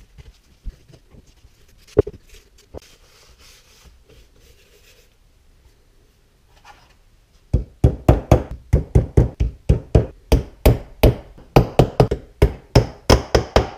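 A hammer striking quickly and evenly, about four blows a second, on a small piece held on a wooden workbench. It starts about halfway through, after a few scattered light knocks.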